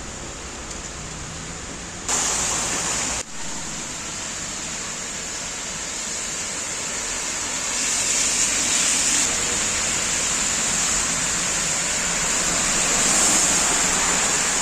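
Steady rushing water noise of cars driving through a flooded road, their tyres spraying water. The noise swells about eight seconds in and again near the end as cars pass. A brief louder rush about two seconds in cuts off abruptly.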